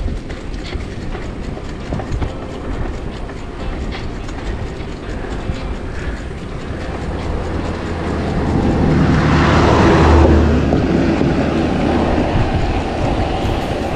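Steady road and riding noise from a loaded touring bicycle on highway pavement, with small rattles from the bike over the road surface. A motor vehicle passes, its engine hum and tyre noise swelling to a peak about ten seconds in, then fading.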